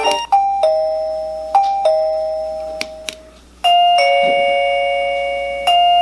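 Wireless indoor doorbell chime being stepped through its ringtones: each button click cuts off the last tone and starts a new two-note ding-dong. The first two chimes fade away, and the last two are louder and held.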